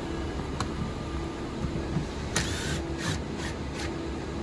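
A door-panel screw being driven in at the bottom of the truck door: a click, then four short rasping bursts a little past halfway, over a steady hum of shop machines.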